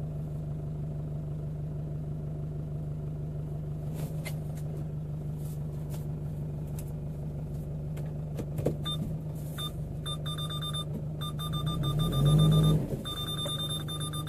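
Toyota Hilux engine running at idle, heard from inside the cab, with a few light clicks. About nine seconds in a rapid electronic beeping starts and keeps repeating, and a little later the engine revs up briefly.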